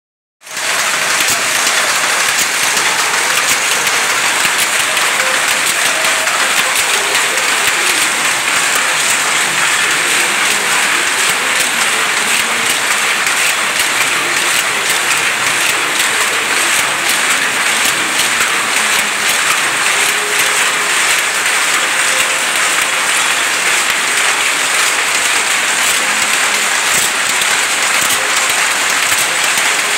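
Power looms weaving cotton towel cloth, a loud, steady, dense clatter of many rapid clicks that cuts in about half a second in.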